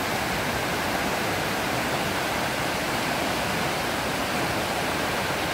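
A storm-swollen, muddy river rushing over rocks in rapids: a steady, unbroken rush of water.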